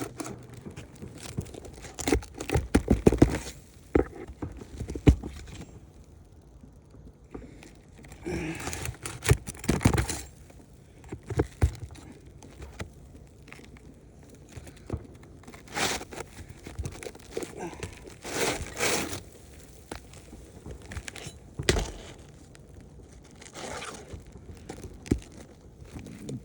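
Asphalt roof shingles being worked loose and handled: irregular scraping and rustling with scattered sharp knocks and clicks.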